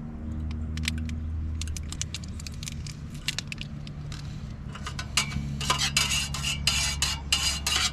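Light metal clinks and rattles of camping gear being handled, sparse at first and much denser and louder in the second half, over a steady low hum.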